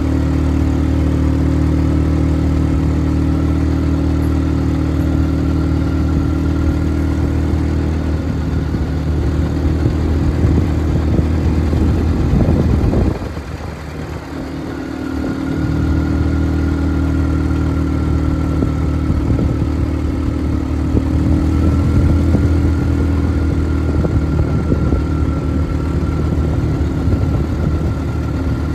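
ATV engine running steadily, easing off briefly about halfway through and then picking up again.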